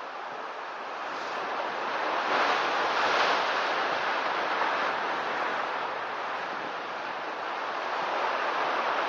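Ocean surf crashing against rocky cliffs: a steady wash of noise that swells to a peak about three seconds in, eases off, and builds again near the end.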